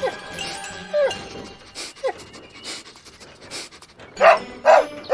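Cartoon dog sniffing in short quick bursts with a few brief falling whines, then barking twice near the end as it picks up a scent trail.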